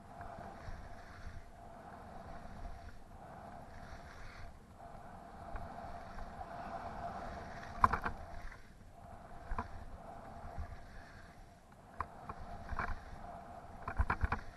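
Skis carving across packed snow in a run of turns, a scraping hiss that swells and fades with each turn. A few sharp clicks and knocks come in the second half, loudest one a little past halfway.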